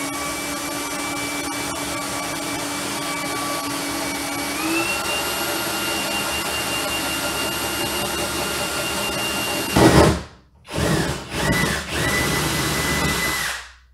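Electric drill with a half-inch bit boring a hole through a C3 Corvette's fiberglass rear deck. The motor whines steadily and its pitch steps up about halfway through. It stops with a louder burst, then runs in a few short bursts before stopping near the end.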